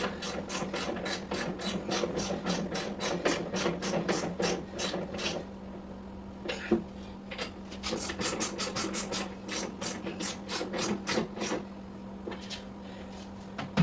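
Socket ratchet clicking rapidly as the saddlebag screws are run in with a 10 mm socket on an extension: two runs of quick clicks with a short pause between.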